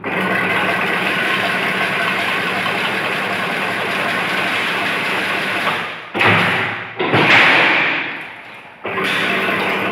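Chain-link fence making machine running with a steady mechanical din, broken by two loud thuds about six and seven seconds in.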